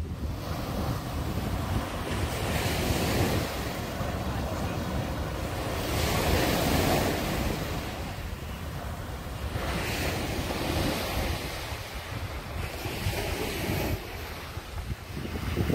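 Small sea waves breaking and washing up a sandy beach, the wash swelling and fading every three or four seconds. Wind rumbles on the microphone throughout.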